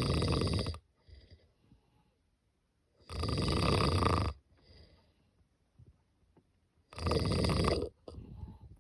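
A cat snoring in its sleep. Three loud, fluttering snores of about a second each come roughly every four seconds, the first already under way at the start, with faint breathing between them.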